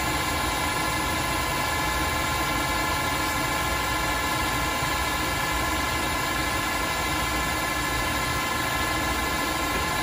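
Tsugami SS20 CNC Swiss-type lathe running: a steady high whine of several even tones over a low machine hum.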